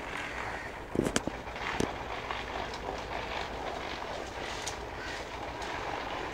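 Steady outdoor background noise, with a few sharp clicks or knocks about a second in and again near two seconds.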